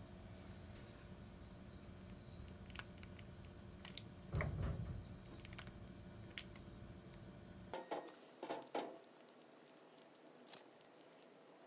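Quiet kitchen sounds: a knife slicing through blanched butterbur-leaf rice wraps on a wooden cutting board, with a few light clicks and a soft thud. A little later come several short squelchy squirts from a plastic squeeze bottle of ssamjang.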